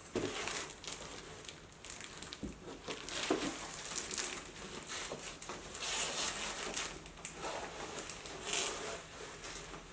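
Paper or plastic packaging rustling and crinkling as it is handled, in irregular bursts, while a handbag is unwrapped.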